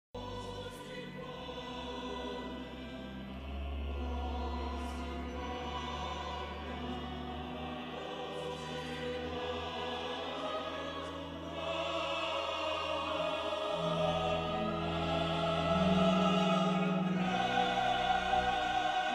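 Slow church music: an organ holding sustained chords over deep bass notes, with choral singing, growing louder in the second half.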